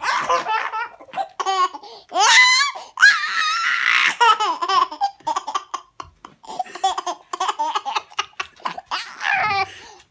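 Baby laughing hard in a long run of short bursts, with a high rising squeal of a laugh about two seconds in.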